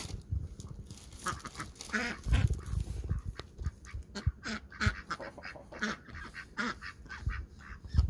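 Domestic ducks quacking in a string of short, separate calls while being hand-fed worms.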